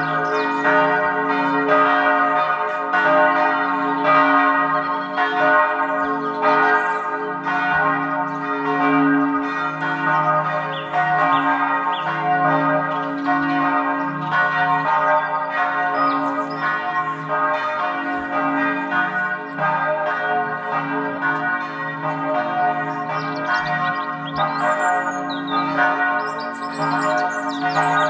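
Bells ringing in a continuous peal, struck over and over with overlapping ringing tones. Short high bird chirps join near the end.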